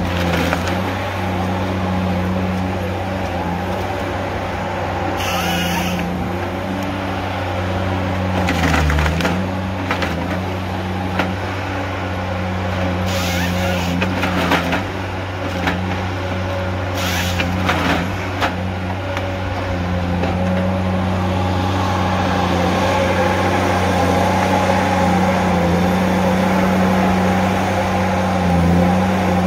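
Tigercat H822C tracked harvester's diesel engine running steadily under hydraulic load while its Log Max 7000XT head handles a pine log, with several short, sharp bursts of wood crackling and splintering. The engine dips briefly about nine seconds in and grows louder over the last third.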